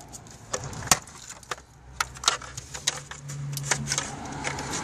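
Small, sharp plastic clicks and rattles, a dozen or so scattered ones, as a car's wiring connector and its plastic holder are handled and worked loose by hand.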